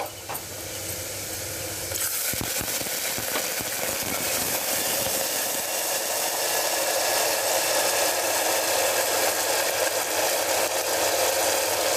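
Onion, ginger and turmeric masala sizzling in hot oil in a pressure cooker, growing louder over the first two seconds and then steady. A few light clicks of the steel ladle against the pot come about two to three seconds in.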